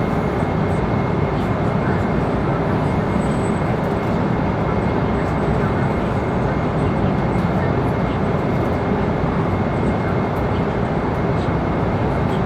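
Airliner cabin noise in flight: the even, unbroken rush of engines and airflow over the fuselage, heaviest in the low range, with a faint steady high tone above it.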